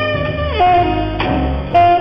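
Live jazz band playing an instrumental passage: a saxophone holds a long note that drops about half a second in, over drum kit and bass, with sharp cymbal hits.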